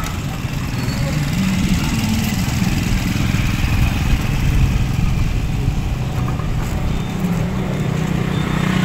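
Motorcycle engine running steadily, heard from the sidecar of a moving motorized tricycle.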